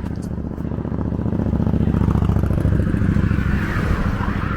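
A motor vehicle passing close by on the road, its engine noise swelling to a peak and then easing off as it goes by.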